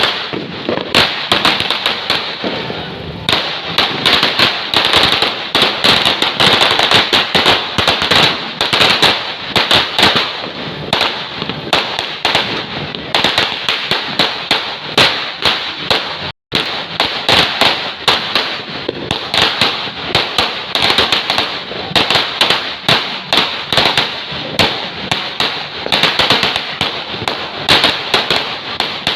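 Firecrackers and fireworks going off in a dense, continuous run of rapid crackling bangs, with an instant of silence about halfway through.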